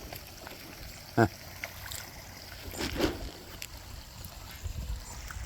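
Faint trickling water at a garden pond, with two short vocal calls, one about a second in and another about three seconds in.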